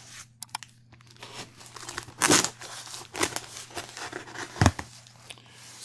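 Packing tape being cut and torn off a cardboard shipping box: irregular crinkling, tearing and rustling of tape and cardboard, with a dull thump a little past four and a half seconds in.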